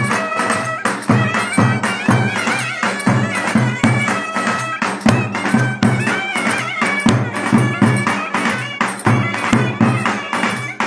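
Live Turkish folk dance music: two clarinets playing a winding, ornamented melody over a steady, heavy drum beat, with jingling percussion.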